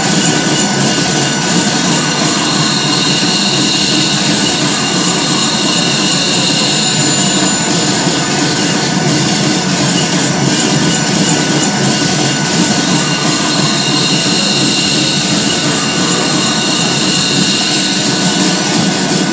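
Live electronic noise music made from sampled train sounds: a loud, steady, dense wash of train-like noise with no clear beat or break.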